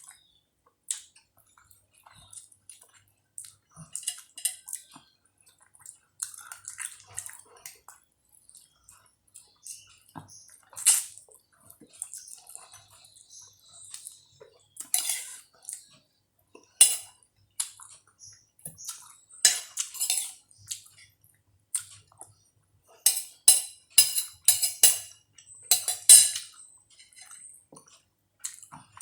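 Spoon clinking and scraping against a dish while eating, in scattered irregular strokes, with a quicker run of clinks near the end.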